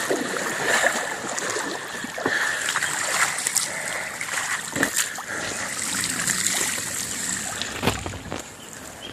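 BMX bike tyres pushing through shallow floodwater over soft, deep ash, water splashing steadily, with a few short clicks.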